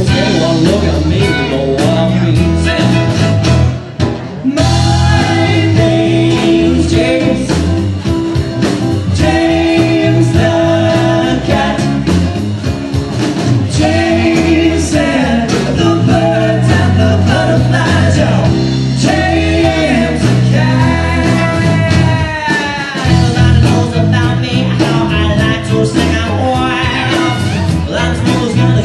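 A live band playing: acoustic guitar, electric bass, drums and fiddle, with several voices singing together. The music breaks off briefly about four seconds in, then carries on.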